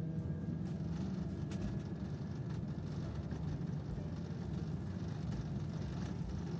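Inside a moving trolleybus: steady, low running hum and road noise, with a few light rattles a second or two in.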